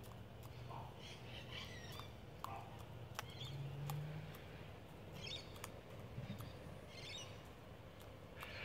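Australian brush-turkey pecking at seed-strewn ground, its beak striking in many short sharp clicks, while small birds chirp briefly several times. A short low hum about four seconds in is the loudest sound.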